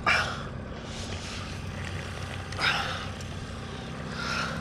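Boat motor running steadily, with three short rushes of noise over it.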